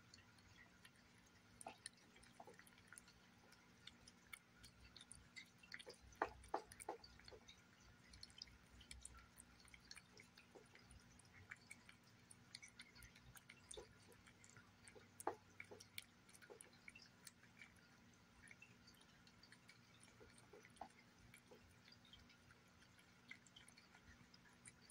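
Cat eating wet chicken pâté: faint, irregular wet smacking and clicking of its mouth and tongue, with a quick run of louder clicks about six seconds in and another sharp one around fifteen seconds.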